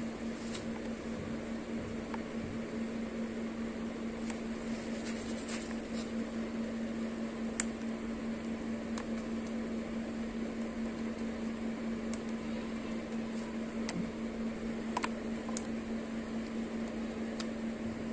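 Steady electric motor hum with a low droning tone, as from a room fan, and a few faint clicks of plastic popsicle moulds being handled.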